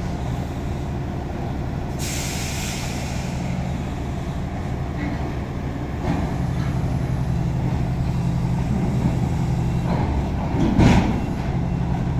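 Heavy diesel truck engine idling steadily, with a burst of air-brake hiss about two seconds in and a brief louder thump near the end.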